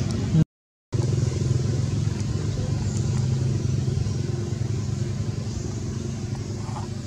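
A low, steady engine hum, like a motor vehicle running, that cuts out completely for about half a second near the start and then fades slightly toward the end.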